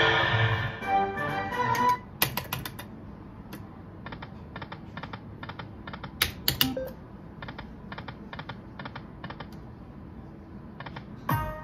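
Dragon Link Golden Century poker machine: a short tonal win-tally jingle in the first two seconds as the free-spins total counts up, then the base game's spin sounds, a steady run of light clicks at about three to four a second, with a few louder clicks and chimes around six seconds in and near the end.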